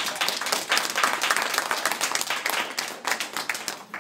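A small audience applauding, many hands clapping at once, dying down near the end.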